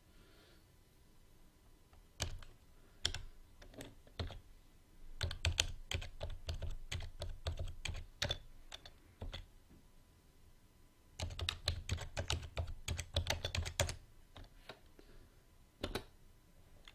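Computer keyboard typing: a few single key presses, then two quick runs of keystrokes with a pause between them, and a last lone key press near the end.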